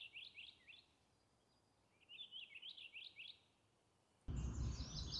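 Purple finch singing faintly: two short phrases of quick, rich warbling notes, the second about two seconds after the first. Near the end the background turns louder and another songbird starts up with higher, repeated phrases.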